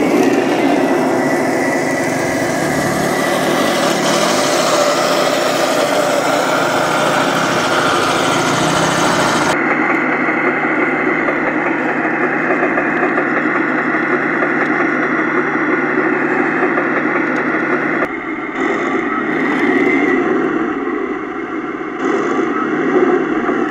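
Radio-controlled model tank running over a dirt track: a steady mechanical whir from its drive and tracks. The sound changes abruptly twice, at about 10 s and about 18 s.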